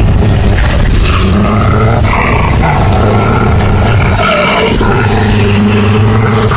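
Wolves and a Tibetan Mastiff growling over a pile of raw meat: continuous, low canine growling that wavers in pitch, a food-guarding warning as the mastiff moves in on the wolves' food.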